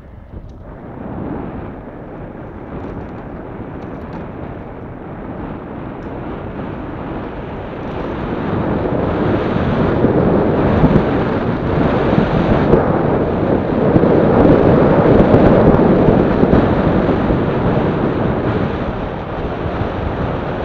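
Wind rushing over the microphone of a camera mounted on a moving recumbent bicycle, with tyre noise underneath. It grows steadily louder and is strongest a little past the middle.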